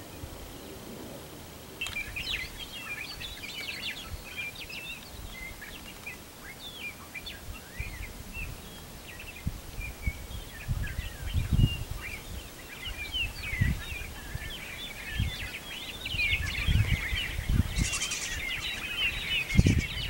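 Many small birds chirping in quick, short overlapping notes, thickening into a dense twittering near the end. Occasional low thumps sit underneath.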